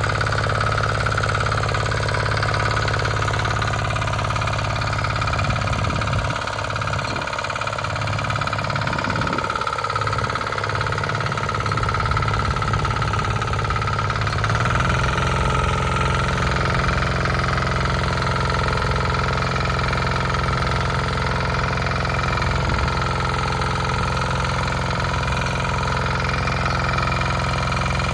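Bolat Atom walk-behind tiller's engine running steadily while the tiller cuts furrows in the soil. Its low note wavers for a few seconds and shifts to a slightly different steady pitch about halfway through.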